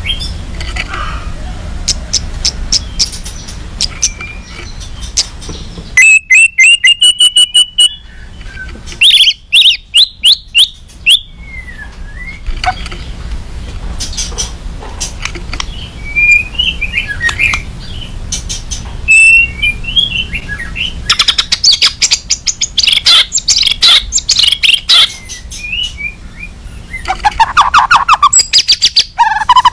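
White-rumped shama singing a loud, agitated song: runs of rapid sharp notes, whistled phrases that rise and fall, and fast dense trills.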